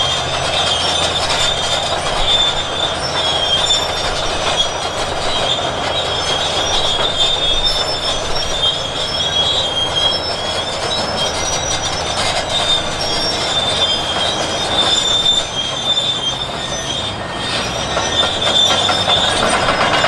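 Bulldozer's steel crawler tracks squealing metal on metal as the machine works, over steady machine noise. The high squeals waver and come and go.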